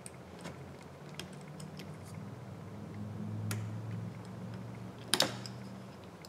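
Light scattered clicks of a precision screwdriver working small screws out of an opened iPhone 11, with a sharper double click about five seconds in. A low steady hum runs underneath.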